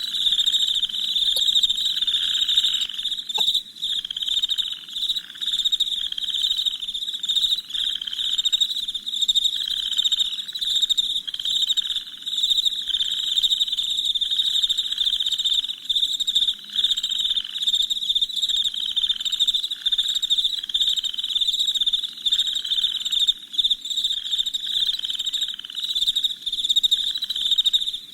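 Night chorus of crickets chirping steadily: a dense high trill runs throughout, over a second, lower chirping call that repeats about once a second.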